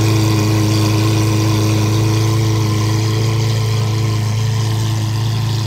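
Lamborghini Aventador's V12 idling steadily, heard close behind its exhaust.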